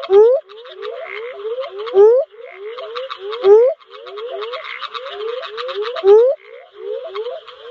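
Northern spadefoot toad calling: four loud, short rising calls about two seconds apart. Behind them is a dense chorus of fainter rising calls, about three a second, and a steady higher-pitched buzzing chorus.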